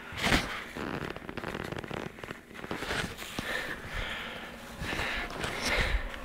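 Crumpled paper crinkling and rustling in irregular bursts as a puppy chews, shakes and carries it.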